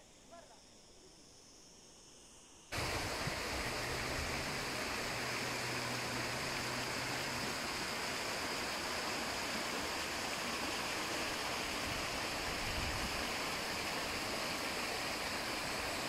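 A few faint chirps over quiet background, then, a little under three seconds in, a loud steady rush of water from a small stream running over rocks cuts in abruptly and holds.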